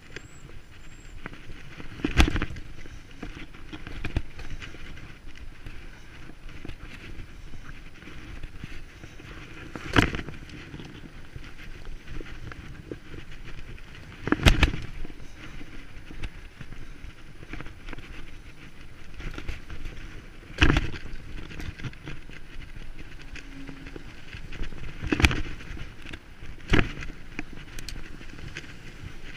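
Bicycle riding over rough ground: a steady rumble of riding noise broken by sharp thumps at uneven gaps of a few seconds, about seven in all.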